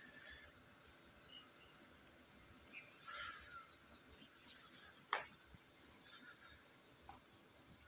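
Near silence: faint outdoor background with a few soft chirps and one sharp click about five seconds in.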